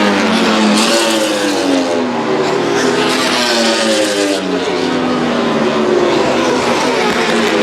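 Several World Superbike race motorcycles with four-cylinder engines passing at high revs, their overlapping engine notes falling in pitch as each goes by, then climbing again with upshifts.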